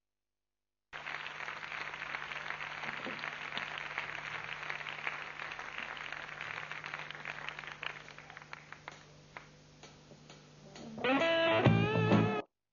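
Guitar music over a steady low hum. It starts abruptly about a second in and dies down, then comes back louder with bending notes near the end before cutting off suddenly.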